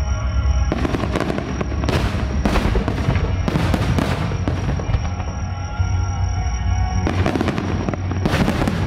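Aerial fireworks bursting over a constant deep rumble, with clusters of sharp bangs and crackles in the first half and two more clusters near the end.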